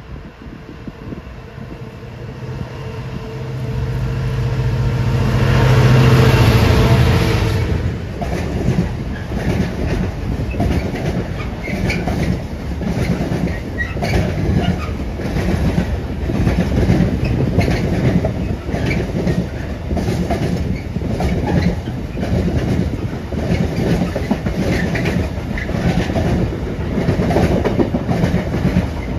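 Diesel freight locomotive approaching and passing beneath, its engine note growing louder to a peak about six seconds in. A long train of container wagons then rolls past with a steady, rhythmic clatter of wheels.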